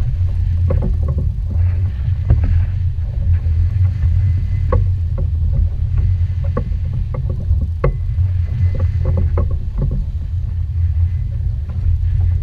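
Sound aboard a small outboard-powered fishing boat: a steady low rumble with scattered light knocks and clicks.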